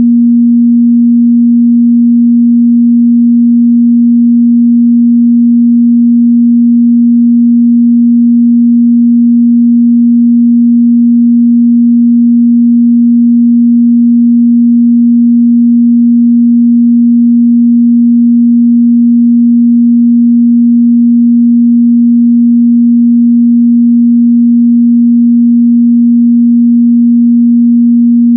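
A steady, loud 237 Hz sine-wave test tone, one pure pitch held without change, used to check speaker and headphone response in the mid-bass.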